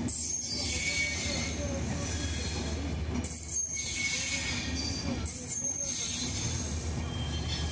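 Passenger coaches of the Bikaner–Sealdah AC Duranto Express rolling past as the train departs: a steady rumble of wheels on rail with thin, high wheel squeal over it, dipping briefly every couple of seconds as coaches go by.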